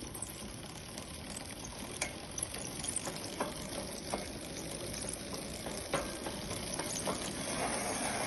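Bicycle drivetrain running with the bike upside down and the pedals turned by hand: the spinning rear wheel and chain give a steady hiss with scattered clicks. The clicking comes from the rusty chain, while the rear hub's earlier knocking rattle has been fixed.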